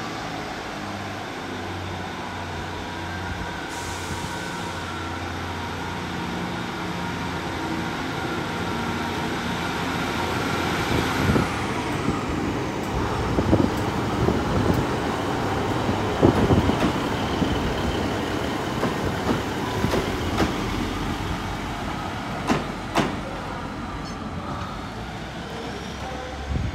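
Two-car Class 150 diesel multiple unit pulling out: its underfloor diesel engines run under power and grow louder. From about halfway, sharp irregular clacks from the wheels over rail joints and pointwork.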